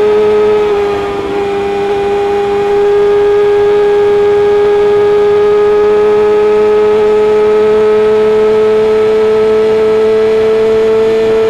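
Kawasaki ZX-6R inline-four engine through an Akrapovic exhaust, held at high revs as a steady high-pitched note. The pitch dips slightly about a second in, then creeps slowly upward.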